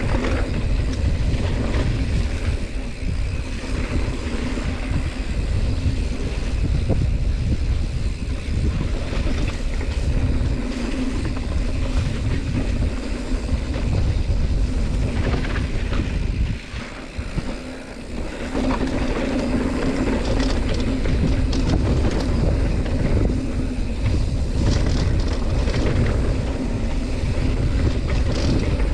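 Giant Trance X2 mountain bike descending a dirt trail: rushing wind on the microphone and steady tyre rumble, dipping briefly a little past halfway.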